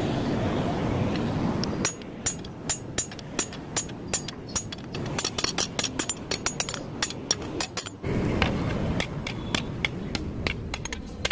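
Hammer striking a red-hot steel bar on an anvil block in rapid blows, about four a second, forging a meat cleaver blank. A steady rushing noise covers the first two seconds and comes back about eight seconds in.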